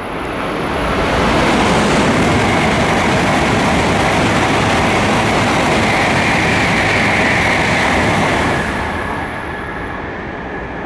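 N700-series Shinkansen train passing through the station non-stop at speed: a loud rush of wheel, rail and air noise. It swells about a second in, holds steady for about seven seconds, and falls away near the end as the last cars clear.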